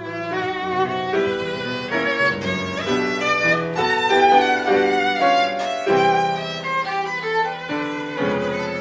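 Viola bowed in a classical duo with grand piano: the viola plays a moving line of notes, changing pitch every fraction of a second, over piano chords and bass notes.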